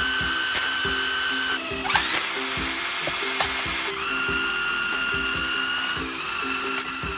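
Cordless drill motor whining at high speed as it spins a magnet with steel balls stuck to it. The whine cuts out about a second and a half in, rises again as the motor spins back up, then drops to a lower pitch about four seconds in.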